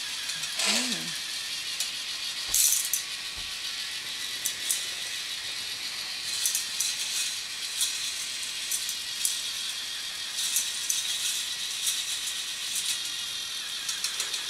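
K'NEX toy roller coaster running: its plastic chain lift rattles steadily, with sharp clicks and clacks now and then as the plastic cars run along the track.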